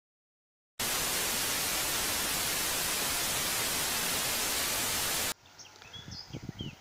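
TV-static sound effect: a loud, even hiss that starts suddenly about a second in and cuts off abruptly about four and a half seconds later. After it, faint outdoor background with a few short, high chirps.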